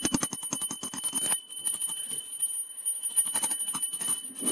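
A small bell jingling, with a steady high ring under many rapid clicks and taps.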